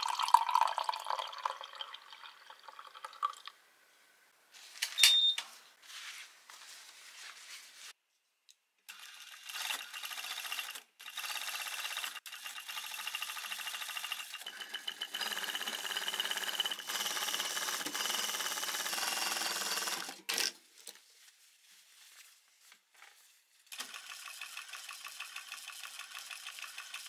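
Coffee poured from a glass carafe into a glass mug, then a Brother sewing machine stitching in two runs: a long one of about ten seconds with a steady high whine under a rapid needle rhythm, and another that starts near the end. A short sharp clink sounds about five seconds in.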